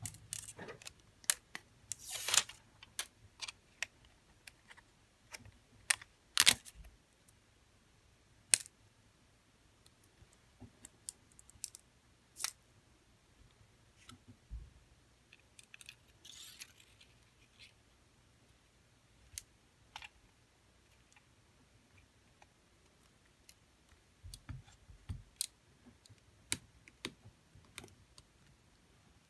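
Plastic and metal parts of a Xiaomi Redmi 9 smartphone clicking and tapping as they are handled and pressed together on a rubber repair mat during a screen replacement. Isolated sharp clicks come irregularly, with a brief scraping rasp about two seconds in and another just past the middle, and a quick run of clicks near the end.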